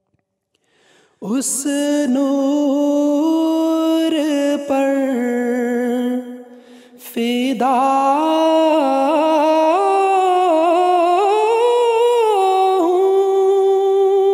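Solo male voice singing an unaccompanied Urdu nazm in long, wavering, ornamented notes. It comes in about a second in, breaks off briefly around the middle, and ends on a long held note.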